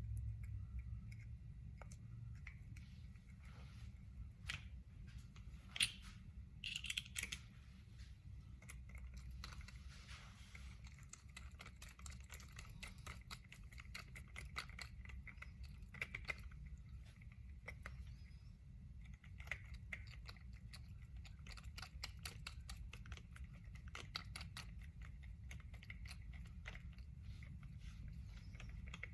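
Small sharp clicks and scratches of the metal parts of an Andis Master hair clipper being handled and fitted together by hand, sparse at first with one louder click about six seconds in, then coming in quick runs, over a steady low hum.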